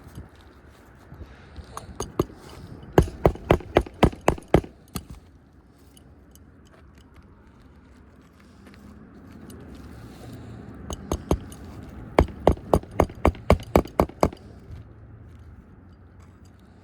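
Hand hammer driving roofing nails through a replacement asphalt shingle into the roof deck: two quick runs of sharp blows, about four a second, the first about three seconds in and the second near the twelve-second mark.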